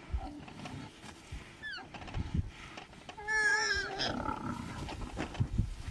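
Warthog squealing in distress while pinned by the neck in a lioness's jaws. A short falling squeal comes about two seconds in, then a longer, louder wavering squeal a little past the middle.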